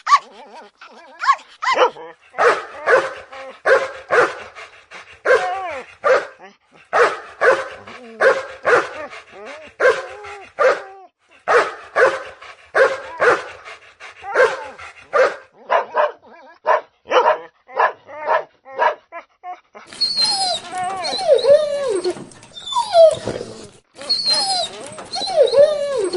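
A dog barking over and over in short barks, about two a second, with brief pauses between runs. About twenty seconds in a different recording takes over: longer whining calls that bend and fall in pitch, over a background hiss.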